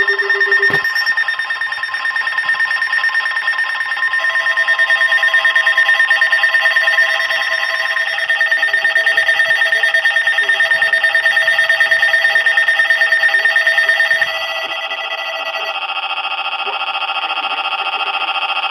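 Weather radio emergency alert alarm: loud, rapidly pulsing electronic beeping made of several high tones at once, signalling an incoming warning broadcast. A click sounds about a second in, and the tones shift to a different, lower set about 14 seconds in.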